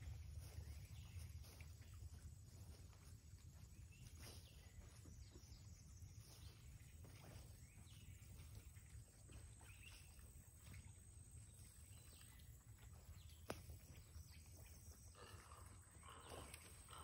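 Near silence: a faint low rumble with scattered faint rustles, and one sharp click about three-quarters of the way through.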